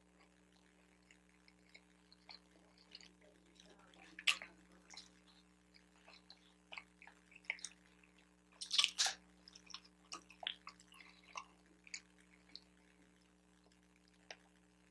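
Close-miked mouth sounds of a person eating: scattered soft, wet clicks and smacks, with a louder cluster about nine seconds in, over a faint steady hum.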